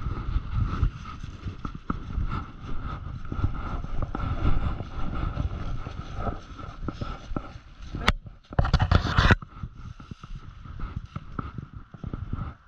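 Footsteps crunching and shuffling through deep dry fallen beech leaves as a person and a dog move along a scent trail, uneven and irregular. A brief loud rustle lasts under a second about two-thirds of the way through.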